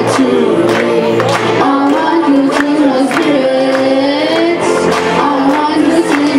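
Children singing a song into microphones over backing music with a steady beat; the melody glides and holds long notes.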